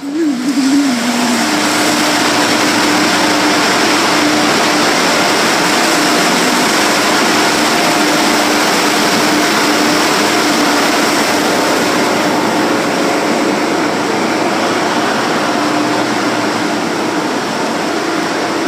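Car wash air blowers running: a loud, steady rush of air over an even motor hum, starting suddenly.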